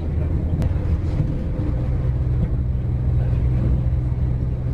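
Steady low rumble of a diesel passenger train running along the line, heard inside the carriage. A steady low hum firms up about two seconds in, with one faint click about half a second in.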